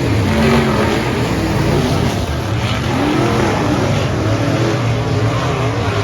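Dirt track race car engines running at speed, their pitch rising and falling.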